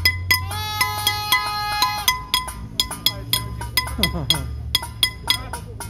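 Bells and metal pots struck over and over, a quick run of clanging strikes, about three a second, each ringing at the same pitches, with a held musical tone about half a second in.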